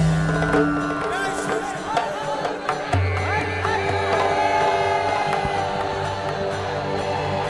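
Temple-theme background music for an Indian TV serial: long held drone notes with wavering melodic lines over them, and a low bass note that comes in about three seconds in.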